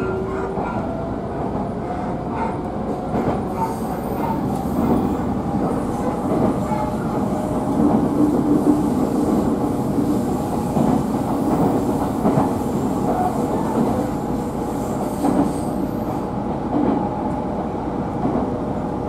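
Inside the carriage of a Minobu Line local electric train under way: a steady rumble of wheels on rail, with scattered clicks from the track and a faint steady whine.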